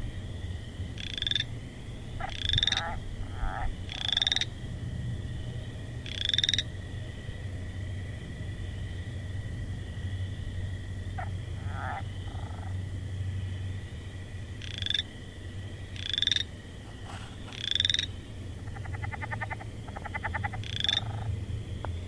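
Frogs calling: loud, short calls that sweep upward in pitch, repeated in groups a second or two apart. Between them come lower, shorter croaks and, near the end, a rapid pulsing trill, all over a steady high drone in the background.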